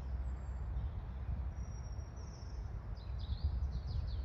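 Small songbird calling: a short high whistle about two seconds in, then a quick run of chirps near the end, over a steady low rumble on the microphone.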